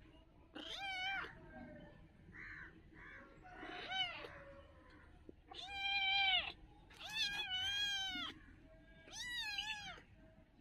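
Kitten meowing repeatedly: about five high meows, a second or two apart.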